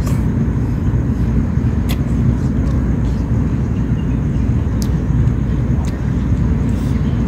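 Steady low outdoor noise, with a few faint clicks.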